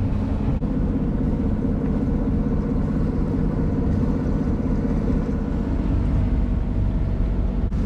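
Jeanneau Sun Odyssey 349 sailboat's inboard diesel engine running steadily under way at night, a constant low drone.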